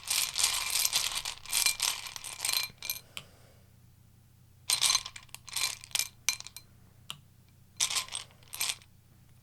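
Tarot cards being shuffled: a dense run of rapid ratcheting clicks for about three seconds, then three shorter flurries of card clicks.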